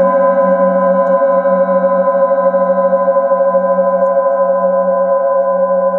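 A hand-held metal singing bowl ringing on with a steady cluster of tones, its low hum wavering slowly in loudness.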